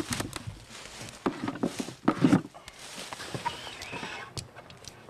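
Soldiers handling artillery shells and their wooden crate and transport tube on a leaf-covered forest floor: irregular rustling, knocks and scuffs, loudest in a few short bursts, with a couple of sharp clicks near the end.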